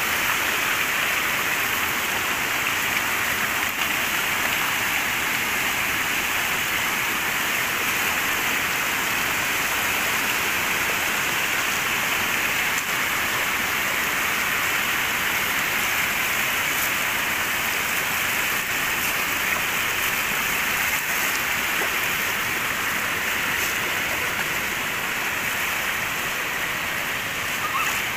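Muddy floodwater rushing steadily across a road, overflowing from a culvert that can no longer hold the water.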